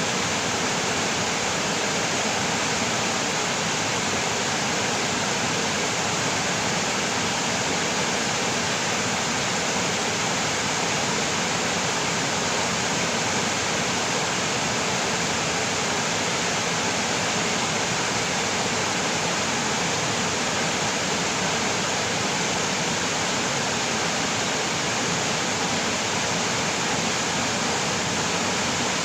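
Stream water rushing over rocks, a steady even rush with no breaks.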